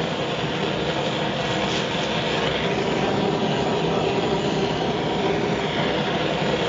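Sievert propane torch with a 2943 nozzle burning steadily at a low setting, a constant even hiss as it warms a copper boiler.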